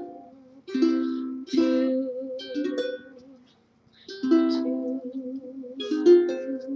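Ukulele strummed in chords that ring out, with a short break about three and a half seconds in.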